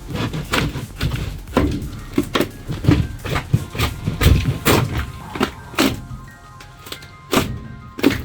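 Background music, with a dozen or so irregular knocks and thunks through most of it.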